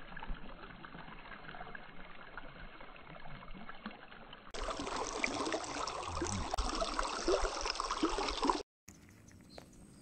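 Shallow stream running and trickling over rounded stones, louder and closer from about halfway through. It cuts off suddenly near the end, leaving only a faint background.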